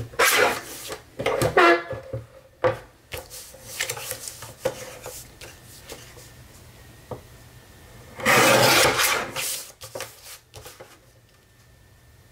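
A sheet of lined paper sliding and scraping across the bed of a paper trimmer as it is positioned for cutting down. A louder scraping stretch of about a second and a half comes about eight seconds in, with small handling ticks around it.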